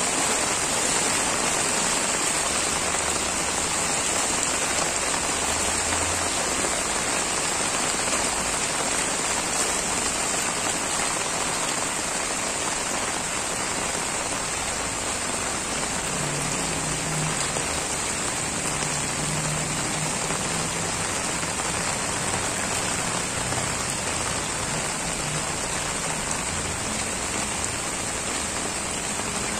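Heavy tropical rain pouring steadily onto a flooded street, a dense, even hiss of drops striking standing floodwater and wet pavement.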